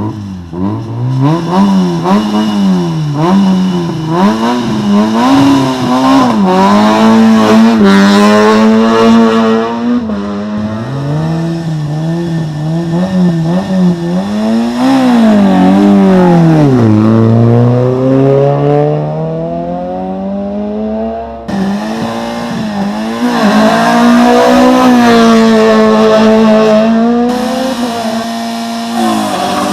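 Rally car engine at full throttle on a stage, its note climbing and dropping again and again as the driver revs, shifts and lifts. The sound breaks off abruptly about two-thirds of the way through into another car running hard.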